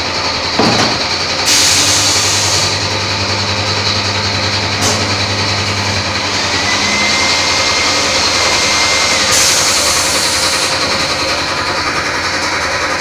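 Thermocol plate-making machine running steadily. There is a knock about half a second in and two bursts of hiss, each about a second long, one near the start and one about nine seconds in. A thin whine is held for a few seconds in the middle.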